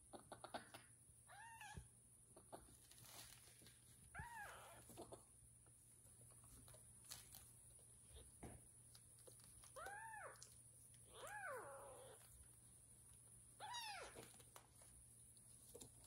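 A young kitten mewing quietly about five times, spaced out over several seconds, each mew a short high call that rises then falls in pitch.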